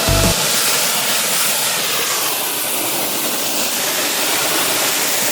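Steady rushing hiss of a waterfall's falling water close to the microphone.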